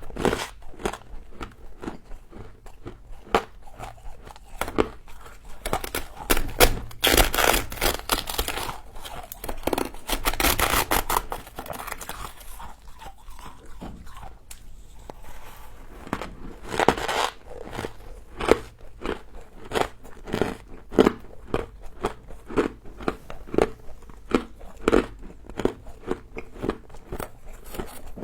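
Close-up crunching as a person bites and chews frozen humidifier frost, with many short, sharp crunches. There are two longer stretches of dense crunching, one about a quarter of the way in and one a little before halfway.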